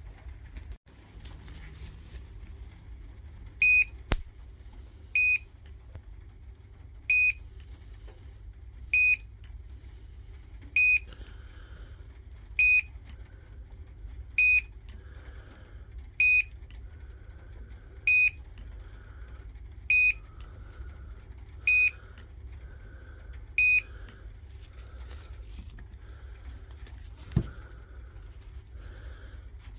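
Battery spot welder beeping once each time it fires while joining the pack's cells: about a dozen short, high beeps spaced roughly two seconds apart, with a steady low hum underneath and a couple of sharp clicks.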